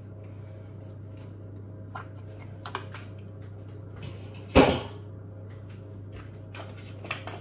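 Kitchen handling sounds: a few light clicks and taps, and one louder short knock about halfway through, over a steady low hum.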